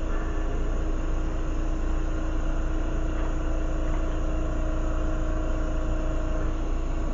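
Lampworking torch flame running with a steady roar, under a constant low hum.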